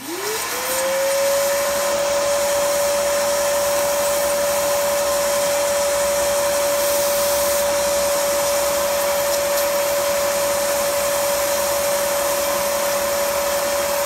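Shop vac starting up and drawing air through a desoldering pump nozzle held to solder joints on a circuit board. Its motor whine rises within about a second to a steady pitch and holds there over a rushing hiss of suction.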